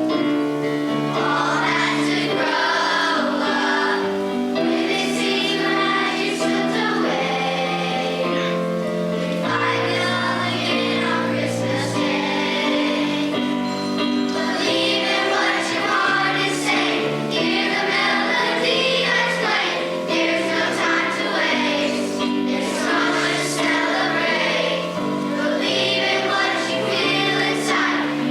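High school choir singing a Christmas song in parts, over sustained low accompanying notes.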